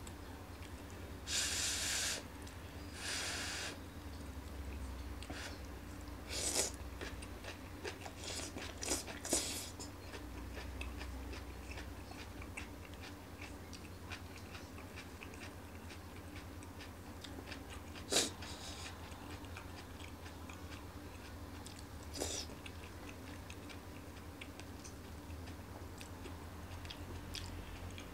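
A person eating a stir-fry of lettuce with chopsticks: two short slurps near the start as the strands are drawn into the mouth, then chewing with a few sharp clicks of wooden chopsticks against the frying pan.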